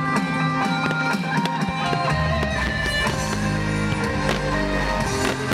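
Music with held tones and a stepping bass line, joined by a deep low rumble about two seconds in, over sharp bangs and crackles from an aerial fireworks display.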